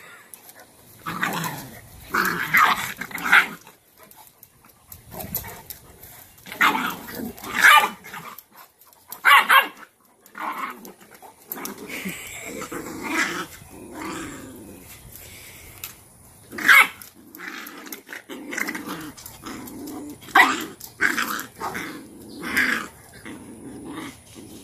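Cane Corso dogs growling and barking in short, irregular outbursts as a mother pins a young puppy to the ground by its head to discipline it.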